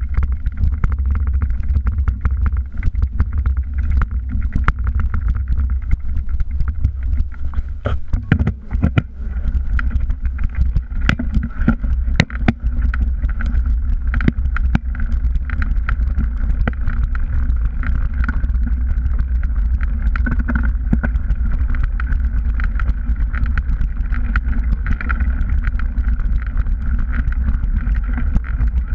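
Mountain bike riding down a rough dirt and stone trail, picked up by a microphone on the bike itself: a steady low rumble of tyre and wind noise with constant irregular rattling and clicking from the bike jolting over stones.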